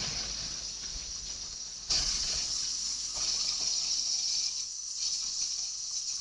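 Steady hiss of falling rain, stepping up louder a little under two seconds in.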